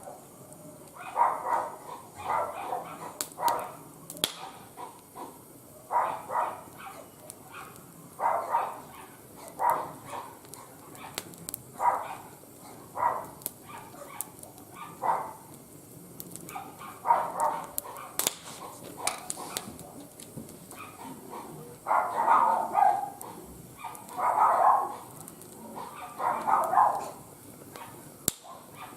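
A dog barking repeatedly, one to two seconds between barks, with sharp crackles from a fire burning in a barbecue grill underneath.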